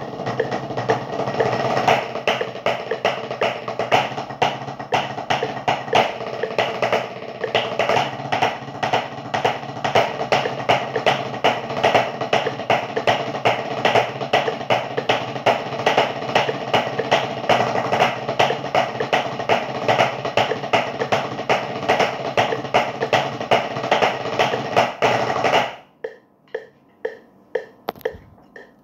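Two drummers playing a snare duet with wooden sticks on rubber practice pads: fast, dense strokes. The playing stops abruptly near the end, followed by a few lighter taps.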